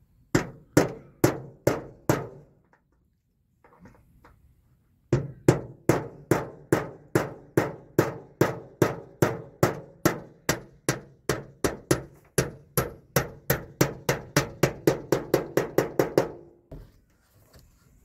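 Hammer blows nailing a corrugated metal sheet to a shed wall. A handful of strikes, a pause of about three seconds, then a long steady run of about three blows a second that quickens toward the end before stopping.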